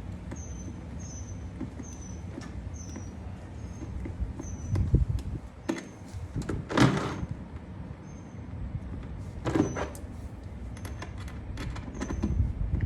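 Hands working on a golf cart's plastic dash: scattered knocks, clunks and rustles of parts being handled, the loudest about seven seconds in. A short high chirp repeats about twice a second in the background.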